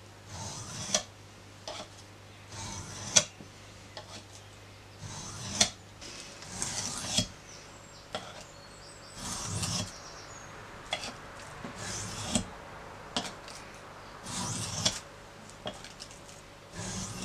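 A bushcraft knife blade scraped back and forth across the coarse side of an oiled bench stone. It goes in repeated short rasping strokes, about one a second, some ending in a sharp click as the blade lifts off the stone. This is sharpening to raise a burr on the bevel.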